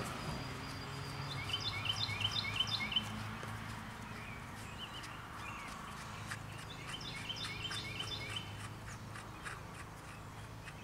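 A songbird singing twice, each song a quick run of repeated chirped notes, about a second and a half in and again about seven seconds in, over a faint steady low hum.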